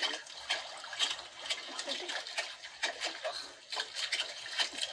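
Sea water splashing and lapping around a small boat, in an uneven run of small splashes.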